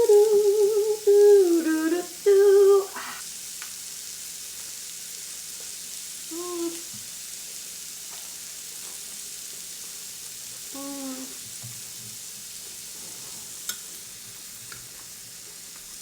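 Meat sizzling steadily on a portable Korean-barbecue grill pan. Over it, loud appreciative humming in the first three seconds, with a couple of short hums later.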